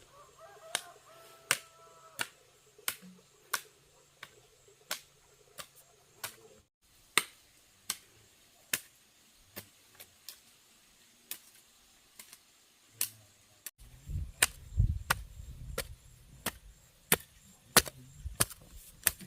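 Repeated chopping strikes, a sharp knock about every 0.7 seconds at a steady pace. A low rumble joins in over the last few seconds.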